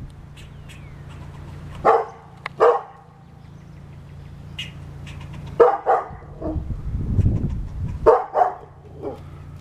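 A dog barking at a squirrel up a tree, in short runs of two or three loud barks with pauses between them.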